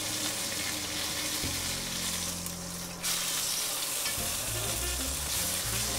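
Thick-cut sirloin steak sizzling in hot rendered beef fat in a cast-iron pot as its edges are seared. The sizzle dies down briefly a little past two seconds in, then comes back.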